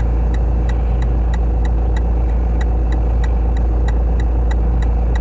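Engine idling steadily: a deep, constant hum with a faint regular ticking about four to five times a second.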